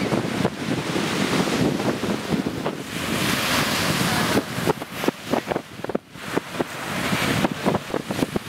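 Crazy loud wind buffeting the microphone in uneven gusts, with a brief lull about six seconds in, over surf breaking on a sandy beach.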